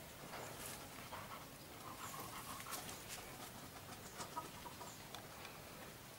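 A dog panting faintly close by.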